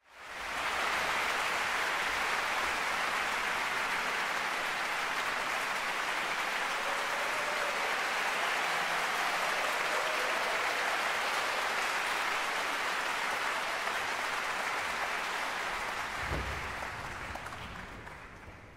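Concert-hall audience applauding steadily, dying away over the last few seconds.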